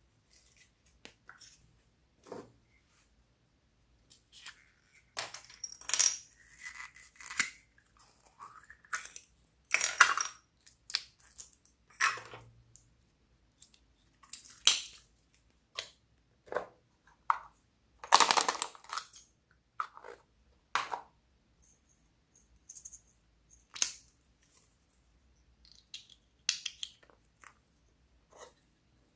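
Slime being squeezed and mixed by hand, with irregular sticky pops, clicks and squelches.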